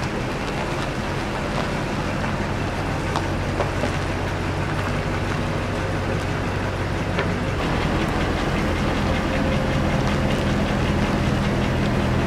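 Pickup truck engine running steadily while the truck backs up slowly, with a slight shift in its low note about seven or eight seconds in.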